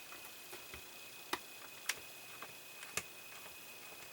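Small sharp ticks and clicks at an uneven pace, a few louder than the rest, as a tiny screw is driven by hand into a plastic scale-model part.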